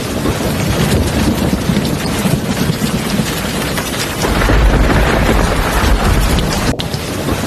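Heavy rain hissing steadily, with a low rumble of thunder swelling up about halfway through.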